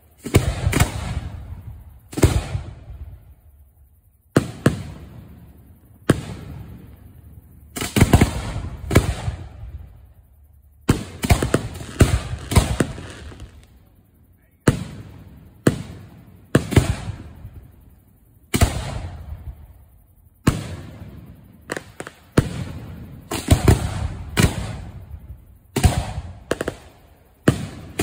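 Aerial firework shells launching from mortar racks close by and bursting overhead: a sharp report every one to two seconds, each fading out over about a second.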